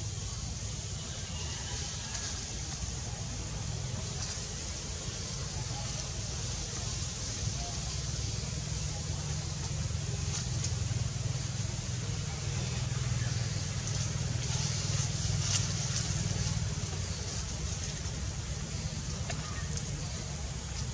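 Steady background noise: a high hiss over a low rumble, swelling a little between about ten and seventeen seconds in.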